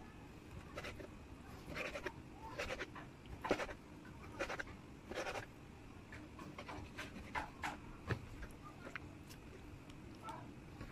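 Knife and hands scraping and tapping on a plastic cutting board while raw liver is sliced: a series of short scrapes, with a few sharper clicks in the second half.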